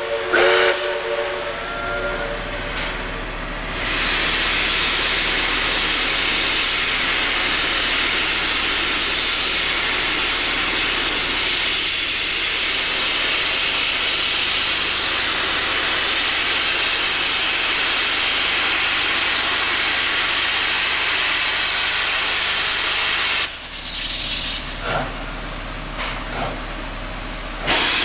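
Baldwin-built 59 class steam locomotive venting steam from its front end: a loud, steady hiss that cuts off suddenly about 23 seconds in. A chord-like steam whistle blast ends just at the start, and a few short beats of exhaust follow after the hiss stops.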